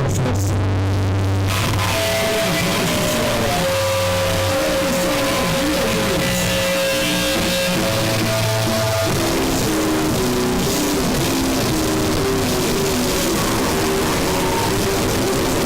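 Loud, harsh noisecore music: a dense wall of distorted noise and guitar. A long held tone sits in it through the middle, and a stuttering run of short repeated notes follows about nine seconds in.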